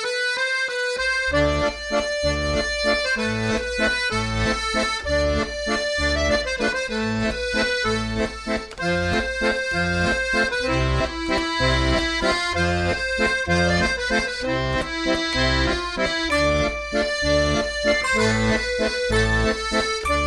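Background music: a melody of held notes over a steady, rhythmic bass that comes in about a second in.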